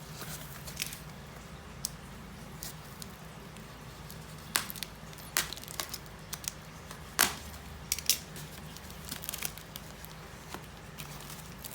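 Packaging being handled and pulled apart during an unboxing: scattered crinkles, tearing and sharp clicks, the loudest about seven seconds in, over a low steady hum.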